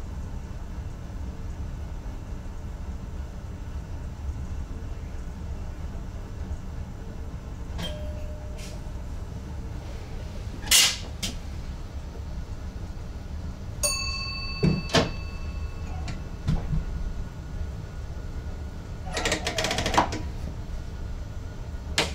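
Inside the cab of an NS ICM intercity electric train: a steady low running noise with scattered sharp clicks and knocks, the loudest about halfway through. A short ringing tone sounds about two-thirds through, and there is a brief rattle near the end.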